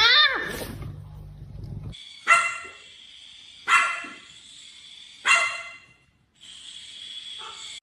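Dog barking three times, about a second and a half apart.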